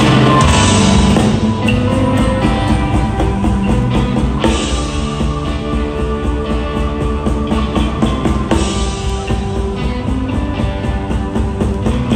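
Live rock band playing a song's instrumental intro, with a drum kit keeping a steady beat under electric and acoustic guitars.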